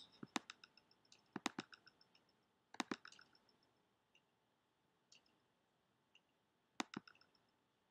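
Computer mouse buttons clicking: a few sharp clicks, several in quick pairs, with near silence between.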